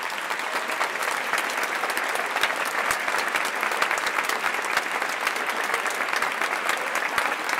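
Applause: a group of people clapping steadily, many quick claps overlapping.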